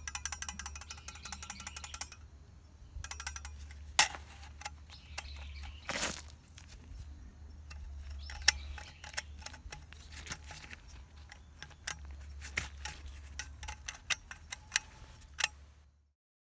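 Music ending about two seconds in, then a steady low drone with scattered sharp clinks and knocks, the loudest near the middle and in a cluster near the end.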